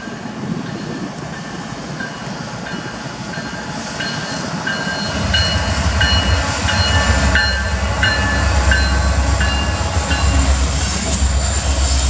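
Union Pacific freight train approaching and passing close behind GE ET44AC and EMD SD70M diesel-electric locomotives. A deep engine rumble swells about five seconds in as the lead unit goes by and stays loud, with short repeated high ringing tones over it.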